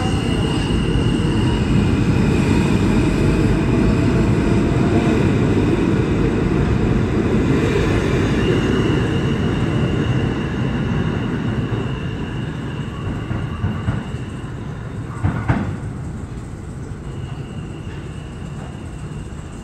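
R160 New York subway train pulling out of the station and running off into the tunnel. A loud rumble carries a high, steady whine that comes and goes, and a couple of sharp clacks from the wheels come about two-thirds of the way in as the sound fades with distance.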